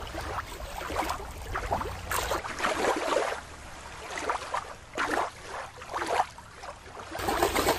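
Water splashing and sloshing in irregular bursts, with a couple of sharper splashes near the end.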